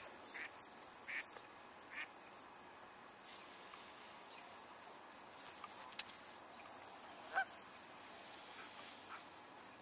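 Faint field ambience: a steady high insect drone with a few short calls, three close together in the first two seconds and one more about seven and a half seconds in, and one sharp click about six seconds in.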